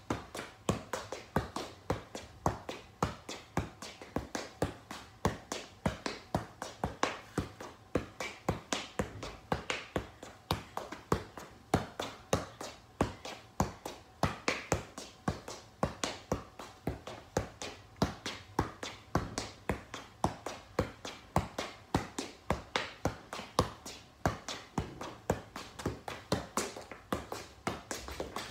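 Soccer ball being juggled: a steady run of soft taps as the ball is kicked up off the foot again and again, about two to three a second, without a break.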